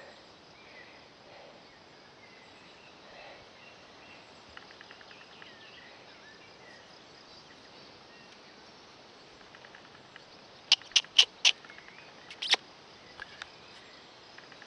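Quiet outdoor meadow background with faint bird chirps, then a tight cluster of sharp clicks or knocks, four in quick succession and one more a second later, from about ten and a half seconds in.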